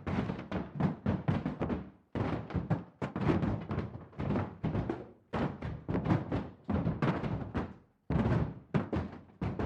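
Fists pounding rapidly on a wall, dull heavy thuds about five or six a second, in flurries of two to three seconds with short breaks about two, five and eight seconds in.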